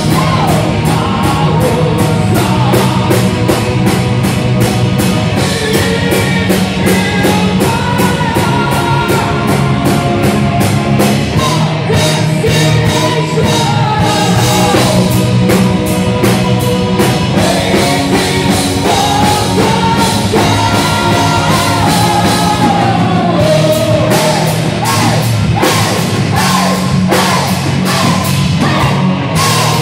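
A power metal band playing live and loud: fast drumming, electric guitars and bass, with vocals singing over the top.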